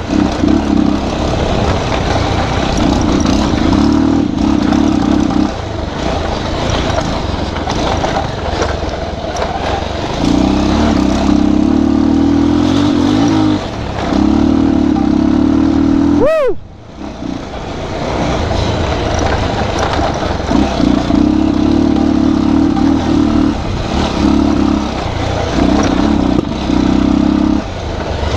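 Bajaj Pulsar 220's single-cylinder engine running while riding a rough dirt road, the throttle opened and eased off in turn so the engine note swells and falls back every few seconds. About sixteen seconds in the sound briefly glides down and dips.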